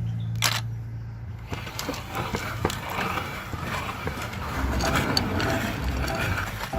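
Electric meat grinder: a steady motor hum for about the first second and a half, then dense, irregular crackling and clicking as the machine grinds through its load.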